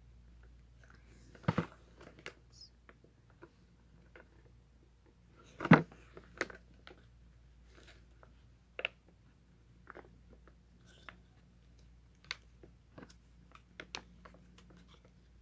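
Plastic phone holder being handled: scattered clicks and knocks of its parts being worked, with two louder knocks about a second and a half and six seconds in.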